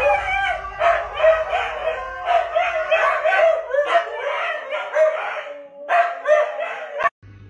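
Several huskies howling together in an overlapping, wavering chorus. It cuts off suddenly near the end.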